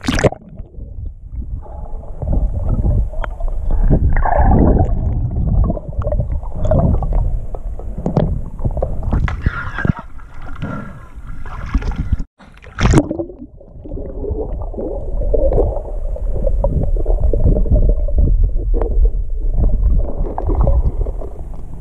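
Muffled underwater rumbling and gurgling of stream water, heard through a submerged waterproof camera, with a few knocks from handling the camera. The sound drops out for a moment about halfway through.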